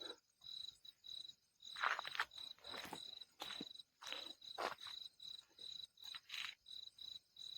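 Crickets chirping at night: a steady high-pitched chirp repeating about three times a second. A few faint rustling sounds come in between.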